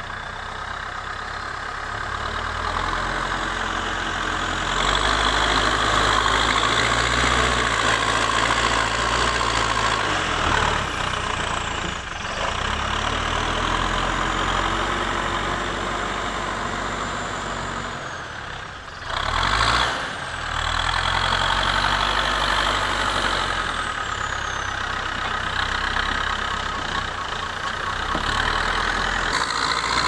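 Terex TLB 740S backhoe loader's diesel engine running under changing load, its pitch and level stepping up and down as the machine drives and works the front loader bucket. A little past halfway it drops briefly, then comes back in a short loud surge.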